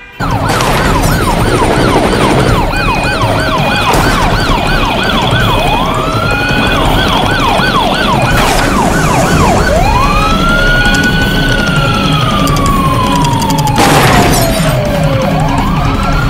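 Electronic police-style siren, first a rapid yelp sweeping up and down about three times a second, then a slow wail that rises, falls away and rises again, over loud music with a steady beat. A few sharp crashes cut through, the loudest near the end.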